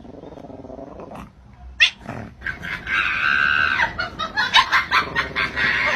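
An animal crying out: a rough, low sound at first, then one long high-pitched cry about three seconds in, followed by shorter cries and knocks.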